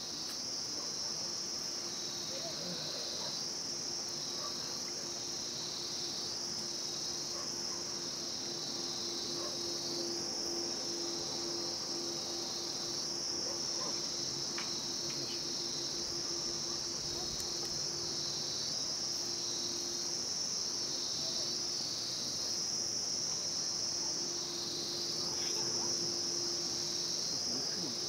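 A chorus of insects making a continuous high-pitched buzz that swells slightly about every second and a half.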